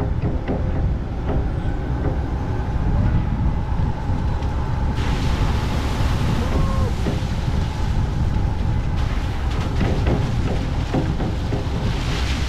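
Moke open-top car on the move: engine and road noise with wind rushing over the microphone mounted above the car, a rush that grows louder for a few seconds in the middle.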